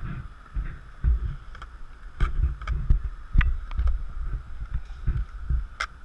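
Wind buffeting an action camera's microphone in uneven low rumbles, with a few sharp clacks about two, three and a half, and six seconds in.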